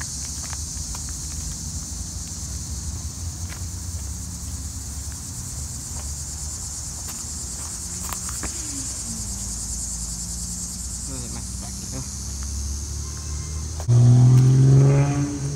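A steady high-pitched insect chorus over a low background rumble. About a second and a half before the end, a sudden loud low-pitched sound comes in briefly.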